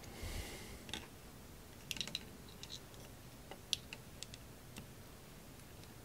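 A brief faint scrape, then scattered light clicks and taps, a quick cluster about two seconds in, as needle-nose pliers and a small nut and screw are handled against a plastic enclosure while the nut is fitted by hand.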